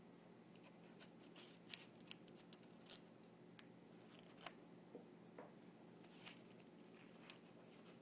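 Faint, sharp clicks and papery rustles, scattered irregularly and the loudest about two seconds in, as a cat's paw bats a small scrap of paper on the metal top of a refrigerator, over a faint steady hum.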